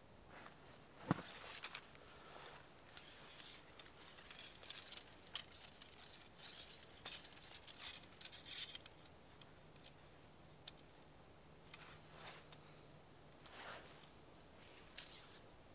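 Camping gear being handled at close range: scattered scratchy rustles and sharp clicks, the loudest click about a second in, another about five seconds in and one near the end. A faint low steady hum runs through the middle.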